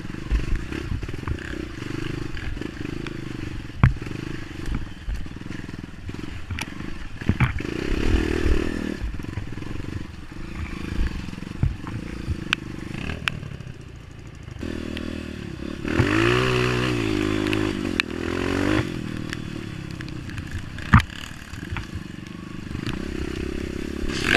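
Honda CRF230 dirt bike's single-cylinder four-stroke engine running and being revved on slippery mud, the revs rising and falling sharply about two-thirds of the way through. Several sharp knocks and clatter come from the bike over the trail.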